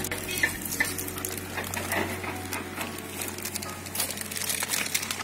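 Plastic spice-flour packet crinkling and rustling in the hands as corn flour is poured from it into a steel bowl, a dense run of small irregular crackles over a low steady hum.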